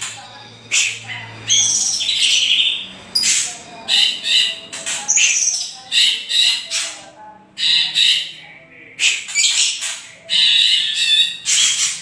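Harsh, agitated rattling 'kretekan' calls of a white-rumped shama and a greater green leafbird, coming in short, loud, high-pitched bursts about once a second. These are scolding, challenge-type calls used to rouse other songbirds to answer.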